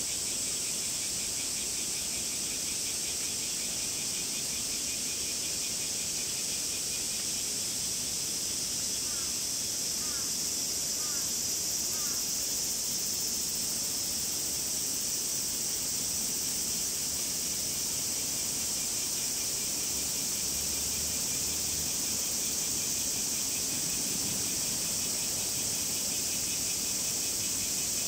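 Cicadas calling together in a steady, unbroken high-pitched drone, with a finer pulsing trill beneath it. A few faint short chirps come through about ten seconds in.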